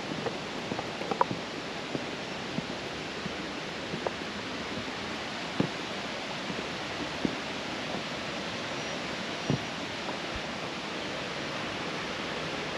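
Steady rush of water from a waterfall cascade, with a few faint taps scattered through it.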